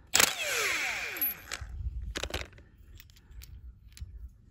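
Cordless impact wrench with a 22 mm deep socket spinning off the top nut of a diesel fuel injector: a sudden start, about a second of running that winds down with a falling whine, then a second short burst about two seconds in. Faint clicks of metal parts being handled follow.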